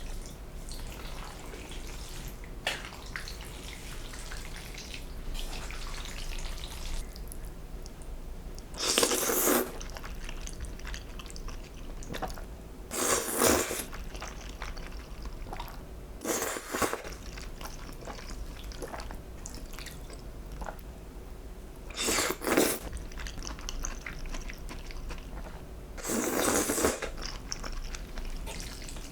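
Close-miked eating: five loud bursts of mouth and food sound, each about a second long, with soft chewing in between.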